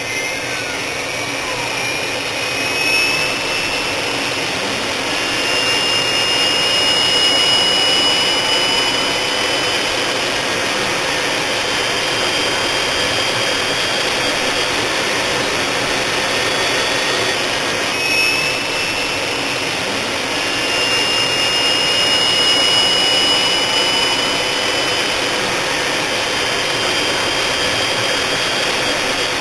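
Jet airliner engines running: a steady, dense noise with faint whining tones that glide up and down. The same stretch of sound comes round again about eighteen seconds in.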